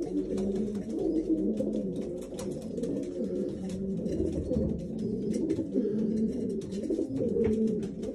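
Several racing pigeons cooing at once: many low, overlapping coos, with faint scattered clicks through them.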